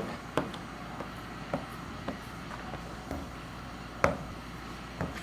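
Scattered light taps and clicks, about eight in five seconds at irregular intervals, the sharpest near the start and about four seconds in, as paint protection film is worked by hand onto the truck's body panel.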